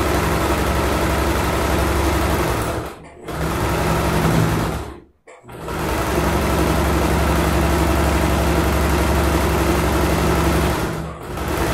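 Domestic electric sewing machine running at a steady speed, stitching a seam through fabric and batting, with brief stops about three and five seconds in and a short dip near the end.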